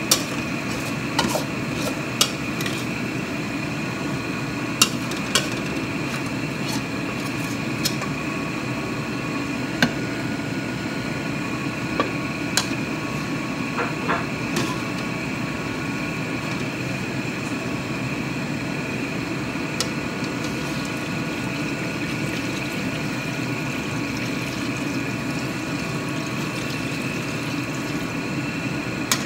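Metal spatula knocking and scraping against a wok during stir-frying: about a dozen sharp clinks, mostly in the first half, over a steady background hum.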